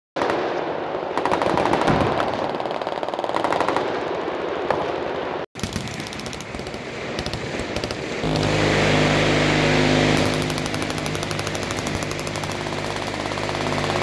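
Many machine guns firing at once in rapid, overlapping bursts. From about eight seconds in, a steady buzzing stream of very fast continuous fire takes over.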